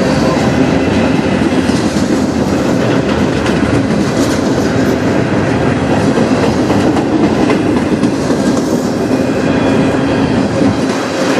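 Freight train's gondola cars passing at speed, steel wheels running on the rails in a loud, steady rush of noise with scattered clicks.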